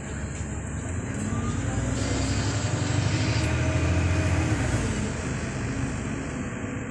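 Alexander Dennis Enviro400 double-decker bus with a Voith automatic gearbox, heard from inside the lower deck while moving: a rushing roar from the engine cooling fan over the low drone of the engine and driveline. It grows louder to a peak about four seconds in, then eases off.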